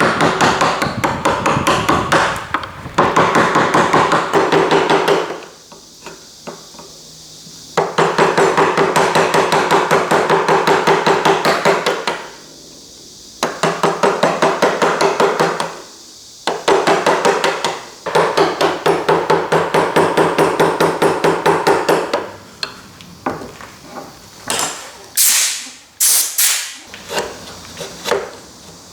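Rapid hammer blows in steady runs of about four a second, each blow ringing, broken by short pauses; a few slower, sharper knocks near the end.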